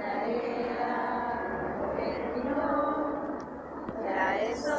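A group of women's and girls' voices singing a slow song together in unison, with long held notes and a brief break about three and a half seconds in.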